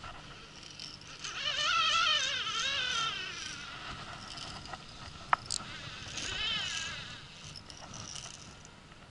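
Baitcasting reel's drag buzzing as a big red sea bream runs and strips line, in two long pulls with a wavering pitch, the first and louder beginning about a second in and the second around six seconds in. A sharp click just after five seconds.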